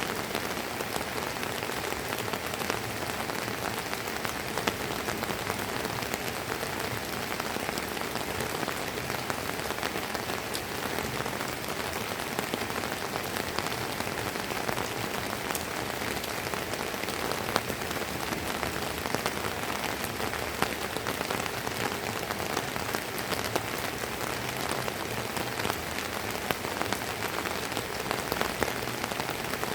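Steady light rain falling, with many individual drops ticking and pattering on hard surfaces close by.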